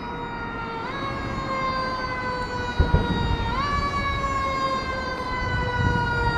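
Fire engine siren wailing on one steady pitched tone that slowly sags, then jumps quickly back up about every three seconds. Low traffic rumble runs underneath.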